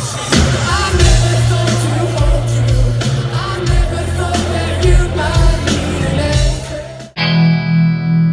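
Rock band playing live, with singing, electric guitar and a steady drum beat. About seven seconds in, the sound cuts off abruptly and gives way to a single sustained guitar chord ringing.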